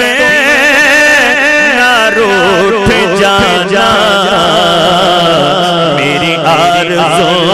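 A man's solo voice singing an Urdu naat through a microphone. He draws out long ornamented notes whose pitch wavers quickly up and down, over a steady low held note.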